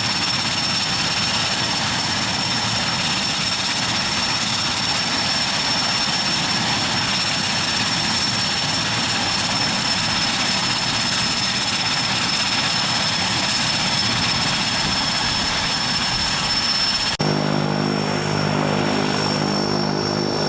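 Steady airplane engine noise, an even rush with a constant high whine. About three seconds before the end it switches abruptly to a lower, steady, evenly pitched drone.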